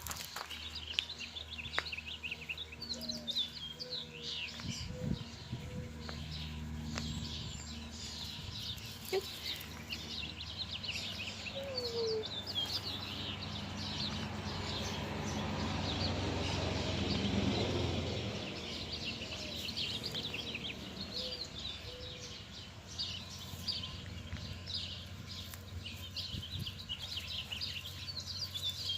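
Birds chirping throughout, many short high calls overlapping. Under them runs a low rumble that swells in the middle and then fades.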